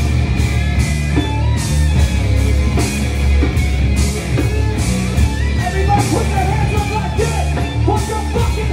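A heavy rock band playing live and loud: distorted electric guitars, bass and drums, with cymbal crashes recurring about once a second.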